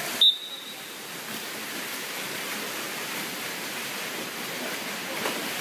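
A short, loud whistle blast just after the start, then steady splashing of several swimmers churning through pool lanes.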